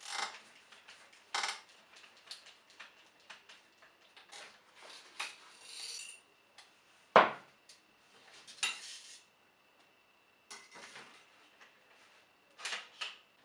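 Remington 870 pump-action shotgun being taken apart by hand: scattered metal clicks and rattles as the barrel comes off and the parts are handled, with one sharp, loud clack about seven seconds in.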